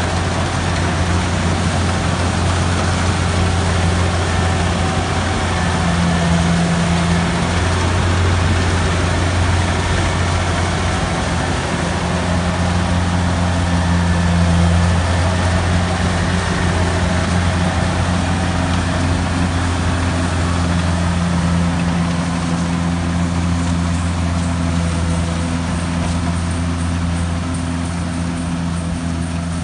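Kubota DC-70G tracked combine harvester's diesel engine running steadily while the machine cuts and threshes rice: a loud, deep, steady hum with mechanical noise over it, growing slightly fainter near the end as the harvester moves away.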